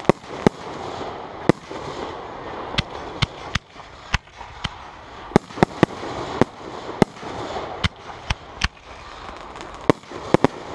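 Aerial firework shells bursting: more than a dozen sharp booms at uneven intervals, several coming in quick runs.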